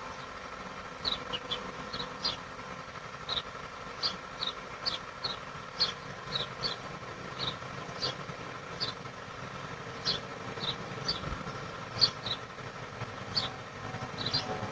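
Outdoor ambience: short, high chirps repeating irregularly, about one or two a second, over a steady low rumble. The rumble grows a little louder near the end.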